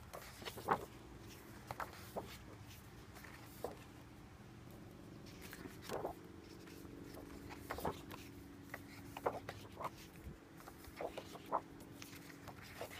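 Paper pages of a coloring book being turned by hand: soft scattered rustles and flicks of paper.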